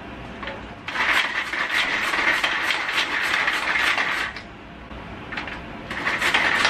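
Hand-pull mini food chopper chopping garlic, its cord pulled again and again so the blades spin with a fast whirring rattle. The first bout starts about a second in and lasts about three seconds; a shorter bout comes near the end.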